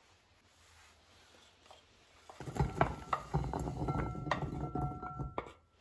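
Chunks of raw carrot sliding off a wooden board and tumbling into a frying pan, starting about two seconds in: a dense clatter of many knocks with a few brief ringing notes, which stops shortly before the end.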